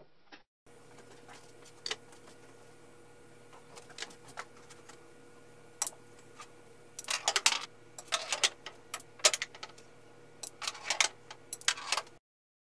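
Pool balls clacking on a small 5-foot pool table: sharp clicks of cue-tip strikes and ball-on-ball collisions, a few single clicks and then quick rattling clusters as the balls scatter. A faint steady hum lies underneath.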